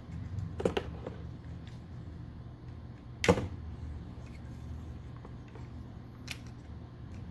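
Plastic parts of a Transformers Nemesis Primal action figure clicking and snapping as its joints and panels are moved by hand during transformation: a few short sharp clicks, the loudest about three seconds in.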